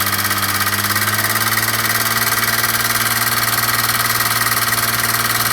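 Audi Cabriolet V6 engine running steadily, probably at idle, with a fast, even rattling tick over its low hum. This is the rattle the car is known for.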